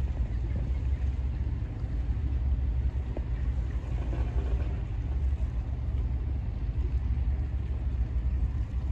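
Steady low rumble of the engine of a small wooden launch under way, with wash and wind noise over it.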